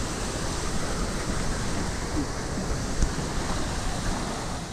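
Steady rushing noise, even and unbroken across low and high pitches.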